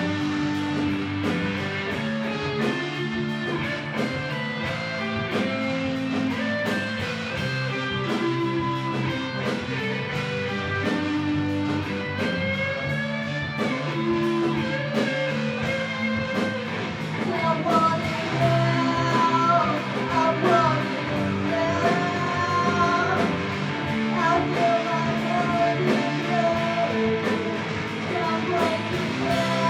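A rock band playing live, with electric guitar out front over bass and a steady drum beat. From a little past the middle, a bending melodic line rises above the band.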